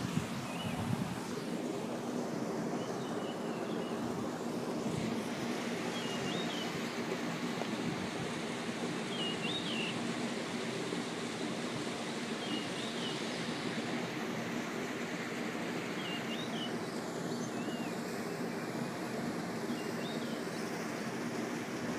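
Steady rush of a small waterfall and breeze, with a bird repeating a short whistled note every two to three seconds. Wind buffets the microphone briefly at the very start.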